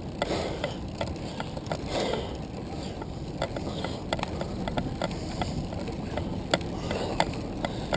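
Handcycle rolling along a street: a steady rumble of wind and road noise with frequent small, irregular clicks and ticks from the bike's drivetrain and fittings.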